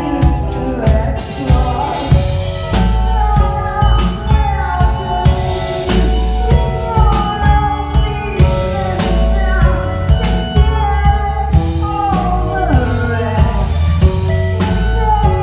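Live band playing a song: a drum kit keeps a steady beat under pitched instruments and singing.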